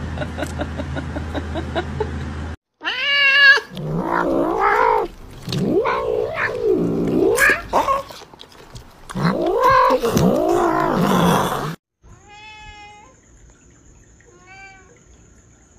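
Domestic cat yowling in long, wavering calls that rise and fall in pitch, followed by two short, fainter meows.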